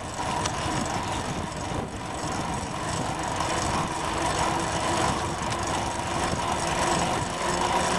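Bicycle rolling downhill: a steady rush of tyre and wind noise with a faint even hum, picked up by a camera taped to the bike.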